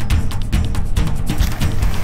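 Background music with a fast, steady drum beat over a low bass.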